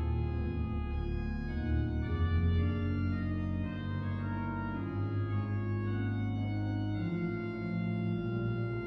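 Virtual pipe organ sounding Cavaillé-Coll pipe samples from Saint-Étienne, Caen, played slowly: a singing melody over held chords, with a bass line on the pedals.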